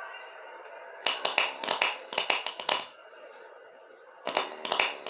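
A person snoring in a rapid staccato rattle, like machine-gun fire, on the in-breath. One burst lasts about two seconds, then there is a pause, and the next burst starts near the end.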